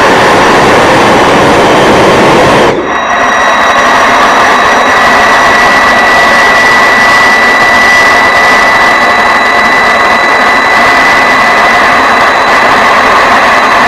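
Freewing T-33 electric ducted-fan RC jet in flight: a loud, steady jet-like rush of fan and air. It drops out briefly about three seconds in, and after that a steady high whine comes through.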